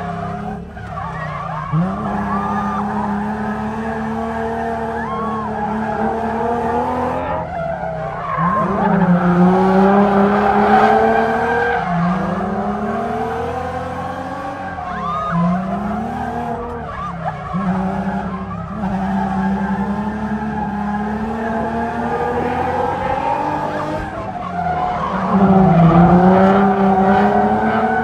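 Drift car's engine revving up and falling back again and again as the car slides sideways, with tyres skidding and squealing. The revs climb about every three to four seconds, with the hardest pulls about a third of the way in and near the end.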